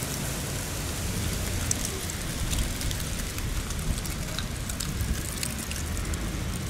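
Outdoor street ambience: a steady low rumble of wind on the microphone and passing traffic, with scattered faint crackles.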